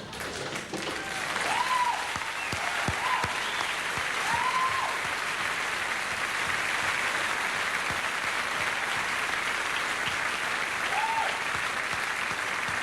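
A large audience applauding steadily, with a few short whistles rising and falling in pitch, after a song has finished.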